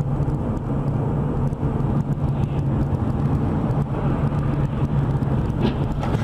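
Steady engine and road noise of a moving car, heard from inside the cabin, with a low, even drone.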